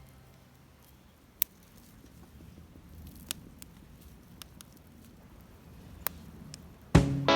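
A few scattered sharp clicks and small handling noises over a faint background, then acoustic guitar music starts near the end.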